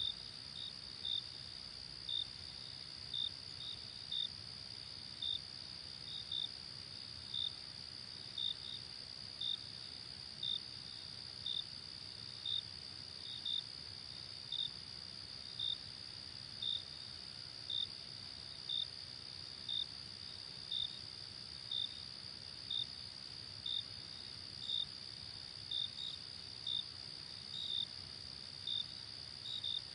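Night insects, crickets: a steady high trill with a louder, slightly lower chirp repeating about once a second, sometimes doubled.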